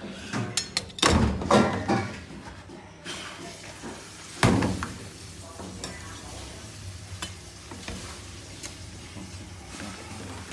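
Cooking clatter: a cluster of knocks and scraping in the first three seconds and one sharp knock about four and a half seconds in, over a low steady hum with scattered small ticks.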